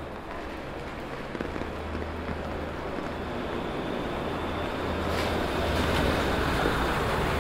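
A vehicle coming up on a wet city street: a low engine hum and the hiss of tyres on wet pavement, swelling louder over the last few seconds, with rain falling.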